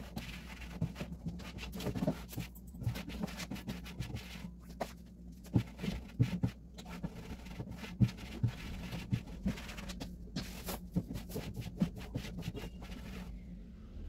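Scattered light knocks, taps and scrapes of jars and packets being moved about and set down on kitchen cupboard shelves, over a low steady hum.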